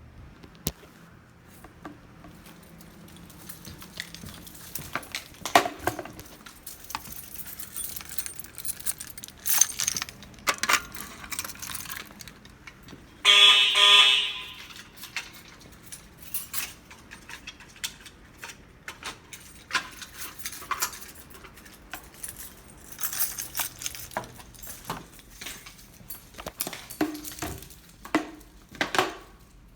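A fire alarm horn sounds once for about a second, midway through, with a pitched buzzing tone. Around it are scattered clicks, rattles and rustling.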